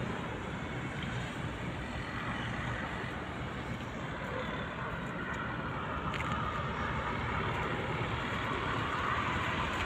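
Steady highway traffic noise heard from a bridge above the road, growing a little louder in the second half as a tanker truck passes below.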